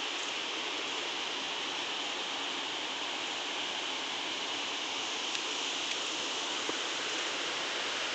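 Steady rush of a waterfall, a constant even hiss of falling water.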